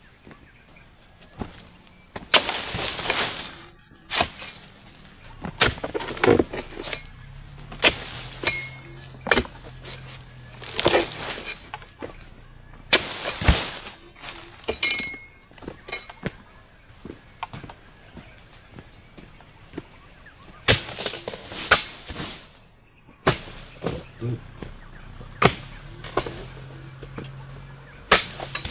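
Oil palm fronds being cut with a pole-mounted harvesting chisel: repeated sharp chopping strikes and several longer rustling crashes as cut fronds fall. A steady high-pitched insect drone runs underneath.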